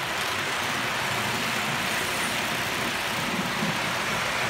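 HO scale model train running along the track: a steady rushing noise of its wheels rolling on the rails.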